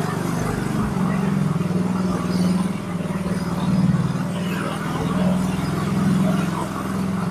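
Motorcycle engine running at low speed, its pitch rising and falling a little with the throttle while riding slowly.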